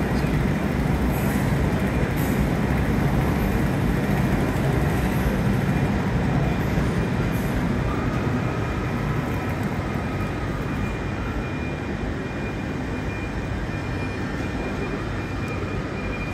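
Passenger train pulling slowly into a platform under a large train shed: a steady rumble that eases off gradually through the second half, with a faint whine about halfway through.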